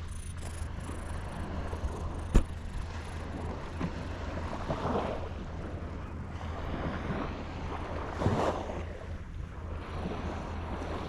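Wind buffeting the microphone with a steady low rumble, over sea waves washing against a breakwater, swelling twice. A single sharp click comes a little over two seconds in.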